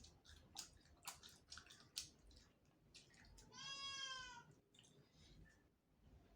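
Close-up mouth sounds of eating crispy fried chicken heads: a quick run of crunches and clicks, then a high-pitched squeak lasting about a second near the middle.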